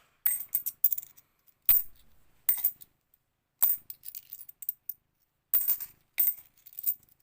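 50p coins clinking against each other as they are dropped and set down into piles, in about eight short bursts of metallic clinks spaced a second or so apart.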